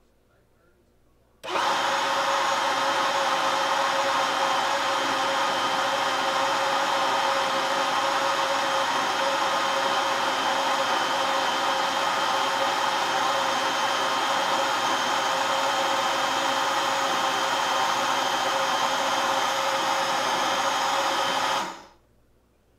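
Milky Plant plant-milk maker's motor spinning its blade to grind cashews with water: it starts abruptly about a second and a half in, runs loud and steady with a constant hum, and cuts off near the end.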